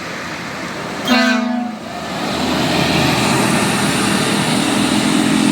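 A tour bus horn gives one short blast about a second in. Then the bus's engine noise grows louder and runs on, with a low steady tone joining near the end.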